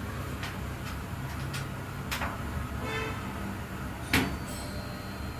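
A few separate knocks and clicks of parts being handled, the loudest about four seconds in, over a low steady hum.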